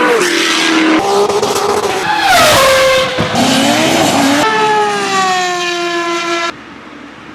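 Historic racing car engines at high revs in a string of short cut-together clips, each loud exhaust note dropping in pitch. Near the end the engine sound cuts off to a much quieter background.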